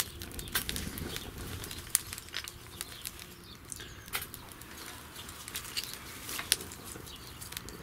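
Small wood fire crackling and flaring in a Bushbox XL folding wood stove as broken wooden clothespins catch: irregular sharp crackles and pops over a soft flutter of flame.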